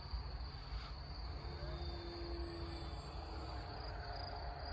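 Crickets chirping steadily, with a low wind rumble on the microphone. A faint hum from the distant model plane's electric motor comes through about halfway in and again near the end.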